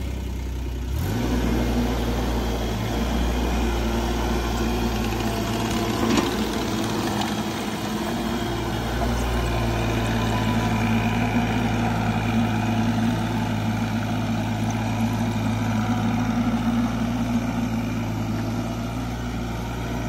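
Kubota SCL1000 stand-on track loader's diesel engine running steadily while the machine drives on its tracks, getting louder about a second in.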